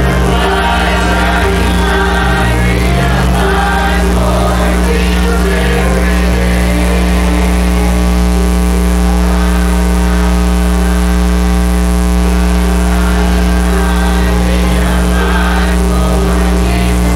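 Church choir singing a gospel hymn with piano and guitar accompaniment, a bass line stepping between notes underneath.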